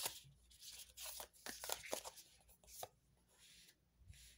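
A deck of oracle cards being shuffled and handled: quick irregular card snaps and rustles, dying away about three seconds in as a card is laid out.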